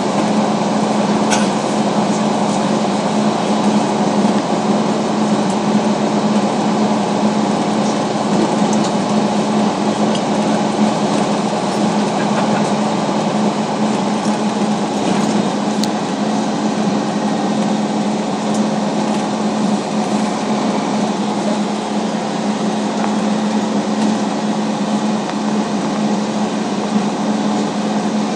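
Inside an airport apron bus on the move: a steady drone from the bus's running gear and engine, with a constant low hum, unchanging throughout.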